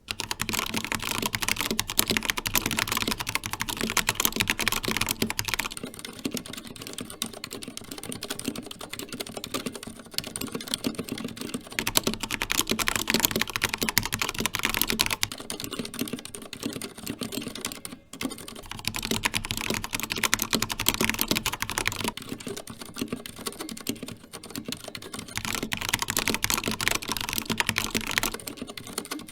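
Continuous typing on mechanical keyboards with Cherry Red and Cherry Silent Red linear switches. The key clatter changes every few seconds between louder, brighter stretches and quieter, duller ones.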